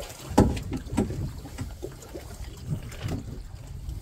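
Wind buffeting the microphone over boat noise on deck, with a few dull knocks, the loudest about half a second in.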